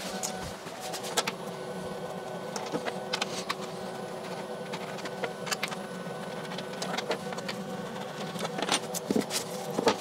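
Screws being backed out of an MDF CNC waste board with a hex key: scattered metal clicks and taps of the key and the screws, over a steady machine hum.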